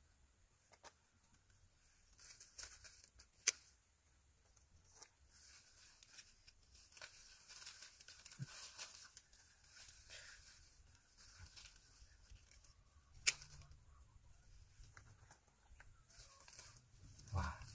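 Hand pruning shears snipping the stems of Dekopon mandarins: several sharp clicks, two of them much louder than the rest, among rustling of the leafy branches. A dull knock comes near the end.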